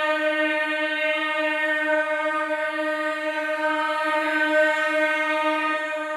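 Background film music: a single note held steadily with many overtones, a sustained drone that starts to fade near the end.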